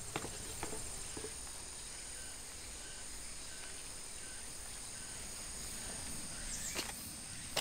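Steady high-pitched chorus of chirping insects. A few light clicks come in the first second and a sharper knock near the end.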